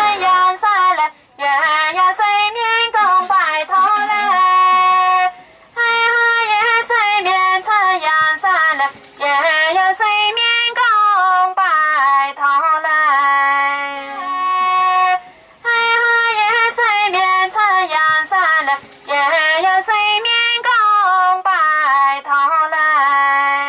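A high-pitched voice singing a melody, in phrases of a few seconds broken by short pauses.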